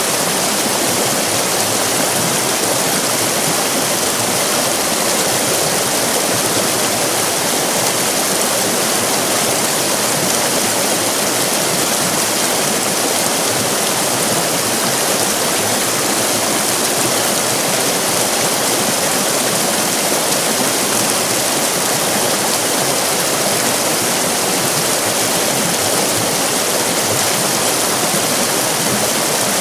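River rapids: fast-flowing water rushing and splashing in a steady, loud, unbroken roar.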